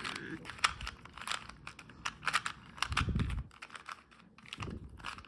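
Plastic Rubik's cube being turned quickly in the hands: a run of irregular rapid clicks as the layers snap round, with a couple of dull bumps about three seconds in and near the end.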